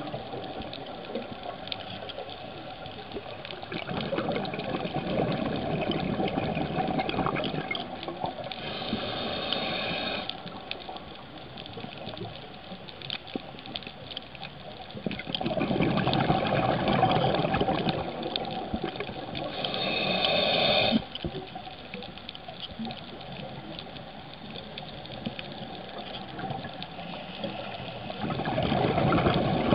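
Scuba diver breathing through a regulator, heard underwater: long bursts of exhaled bubbles, each followed by a shorter hiss of inhalation. There are two full breaths about ten seconds apart, and a third begins near the end.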